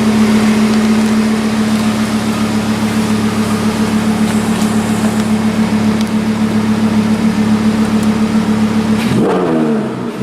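Audi R8 V10 Plus's 5.2-litre V10 idling steadily and loudly through a Larini aftermarket exhaust. About nine seconds in, the steady note breaks off and its pitch shifts as the throttle is worked.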